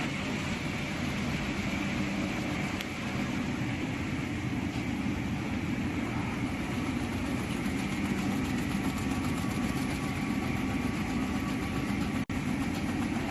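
Mattress-making machinery running steadily, a dense, even mechanical hum. The sound drops out for an instant near the end.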